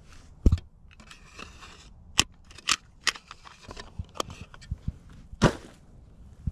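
Footsteps crunching through dead, dry field vegetation: a handful of sharp snaps and crunches at irregular intervals, some with a low thud, between patches of rustling.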